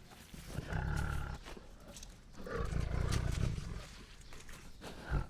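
Tiger roaring and growling in two deep bursts: a short one about a second in, then a longer one of over a second, with a brief grunt near the end.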